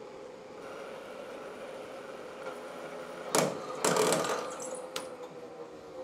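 CNC lathe spindle turning while a high-speed-steel parting tool cuts a groove to part off a pulley, a steady hum. About three seconds in come two loud harsh noises, a short one and then one lasting about half a second.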